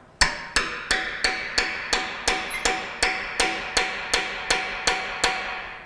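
A steel hammer striking a cold chisel set into a steel joint of an old KUKA industrial robot arm, about three even blows a second, each with a short metallic ring. The chisel is being driven in to separate a friction-fit part.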